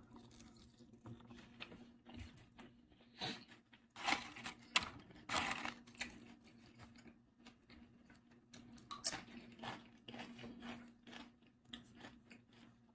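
A person chewing and eating food close to the microphone, with scattered short crunching and mouth sounds, loudest a few seconds in and again near the middle.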